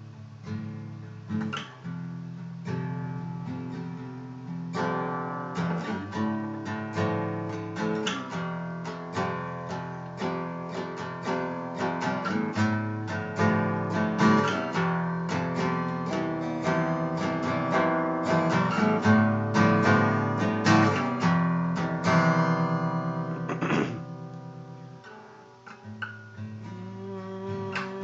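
Acoustic guitar being strummed in an instrumental intro. It grows steadily louder, then about 22 seconds in a chord is left to ring and fade, and the strumming picks up again near the end.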